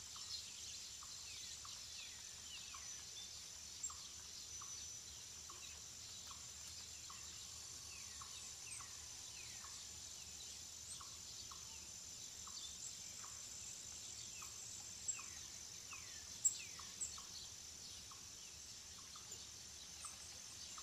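Faint woodland nature ambience. Birds call in quick falling notes over a steady high-pitched drone, and a soft ticking call repeats regularly, roughly twice a second. A few sharper high chirps stand out past the middle.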